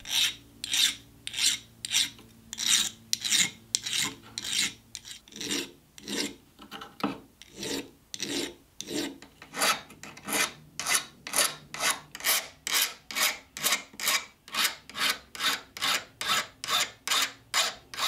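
Metal hand file rasping across the edge of a small brass sheet piece braced on a wooden bench pin, in regular back-and-forth strokes that quicken from slow to about two or three a second. The sawn edges are being smoothed before soldering.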